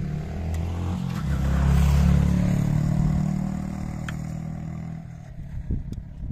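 A motor vehicle's engine passing by on the road, growing louder to a peak about two seconds in and then fading away.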